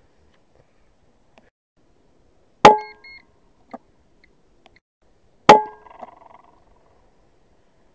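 Two rifle shots about three seconds apart, each a sharp crack with a short metallic ring after it. A faint rustle follows the second shot.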